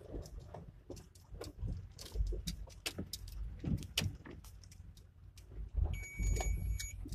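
Inside a car bumping slowly over a potholed, rutted dirt road: a low rumble with irregular rattles and knocks from the cabin as the car jolts through the holes.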